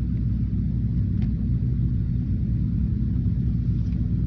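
Steady low mechanical hum and rumble of running HVAC equipment, even in level throughout.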